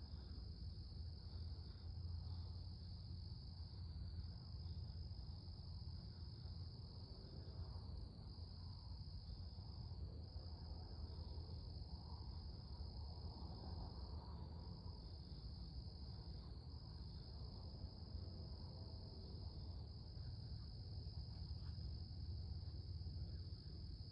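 Night insect chorus, a continuous high, even trill typical of crickets, over a faint low steady rumble.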